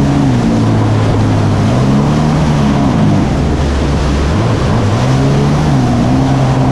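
Jet ski engine running at speed, its pitch rising and falling a few times as the throttle changes, over a steady rush of wind and water.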